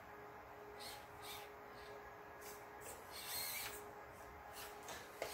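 Axial SCX24 micro crawler's electric motor whirring faintly in short bursts of throttle as it crawls over a fleece blanket, over a steady low hum.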